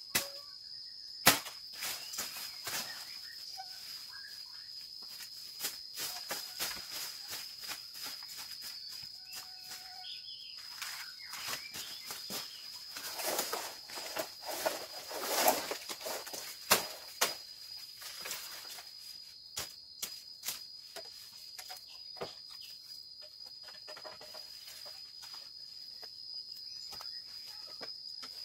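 Insects droning steadily at a high pitch, with scattered sharp knocks and rustling of stems and leaves from a machete being worked in bamboo undergrowth. The loudest knock comes just over a second in, and a longer burst of rustling comes about halfway through.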